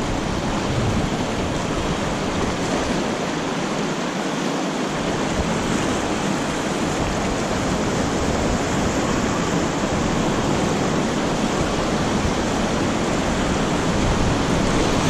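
River rapids rushing steadily around an inflatable raft, a continuous whitewater roar that grows a little louder near the end as the raft nears rougher water.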